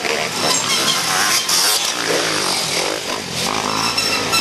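Off-road dirt bike engines revving up and down as riders go along the trail, their pitch rising and falling.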